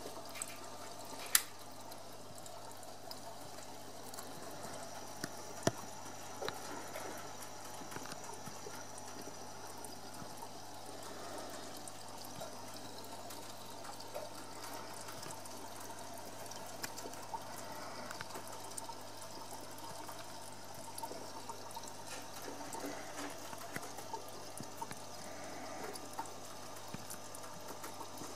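Aquarium water trickling and circulating steadily, with a low hum underneath. Two sharp clicks stand out in the first six seconds, the first one the loudest.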